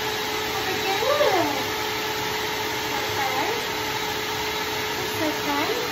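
Steady whir of a grooming dryer running without a break, with a few short voice-like sounds rising and falling in pitch over it, about a second in, near three seconds and near the end.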